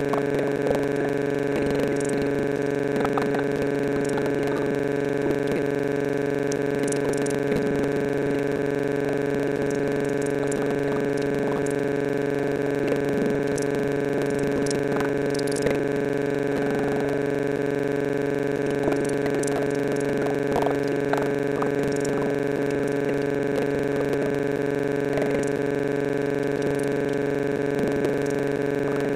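A loud steady drone of several held tones at once, unchanging in pitch and level, with a voice faintly audible beneath it.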